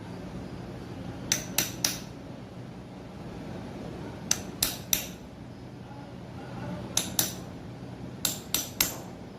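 Hammer striking metal parts of a semi-hermetic compressor being dismantled: sharp ringing taps in quick groups of three, about every three seconds, over a steady low hum.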